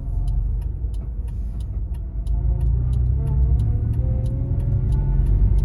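2000 Honda Civic driving, heard from inside the cabin: a steady low rumbling drone from the front wheels, which the occupants take for a worn front wheel bearing rather than a tyre. A faint regular ticking runs through it about three times a second.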